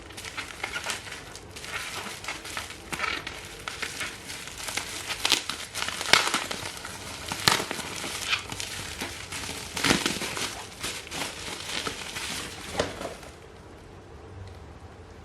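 Packaging being handled and unwrapped, crinkling and crackling in irregular bursts with sharper clicks among them; the handling stops about two seconds before the end, leaving a faint hiss.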